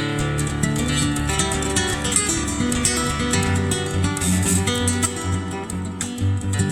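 Background music: fast plucked and strummed acoustic guitar in a flamenco style.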